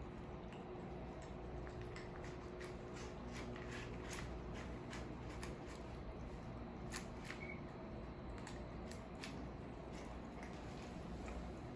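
Pets eating dry food: irregular small crunches and clicks of kibble, over a low steady hum.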